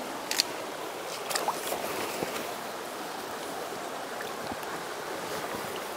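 Shallow mountain creek running steadily over gravel, with a few light splashes and clicks from someone wading through the water about a second apart early on.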